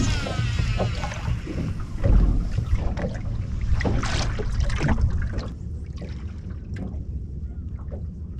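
Wind buffeting the microphone and water moving against a small boat's hull, with a few scattered knocks and splashes.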